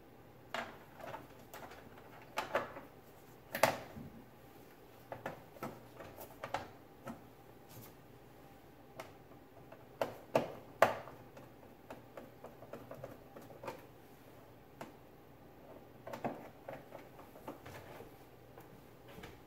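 Plastic control-board cover of an electric cooktop being set in place and screwed down with a hand screwdriver: scattered clicks and knocks of plastic and metal. The sharpest come about four seconds in and again around ten and eleven seconds in.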